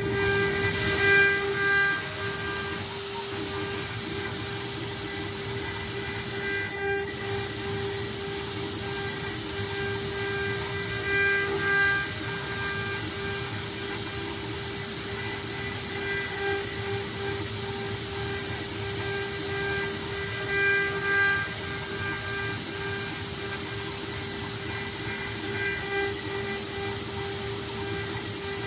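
CNC router's 3.2 kW water-cooled spindle running with a steady whine and a strong hiss, briefly dipping about seven seconds in.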